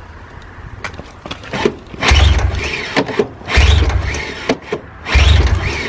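Recoil pull-starter on a 2003 Ski-Doo Legend 550's two-stroke twin, yanked three times about a second and a half apart. Each pull gives a rope whir that rises and falls, with the engine turning over but not catching. The owner suspects the carburetors need cleaning.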